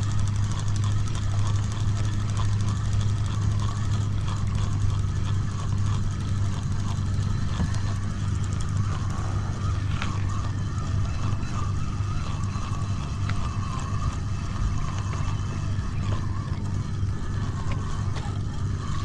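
A small boat engine running steadily at an even, low pitch, with no change in speed.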